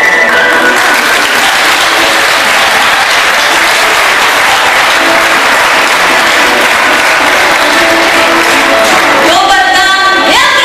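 Audience applauding steadily, as the last held note of the music dies away at the start. Near the end, voices rise and fall over the clapping.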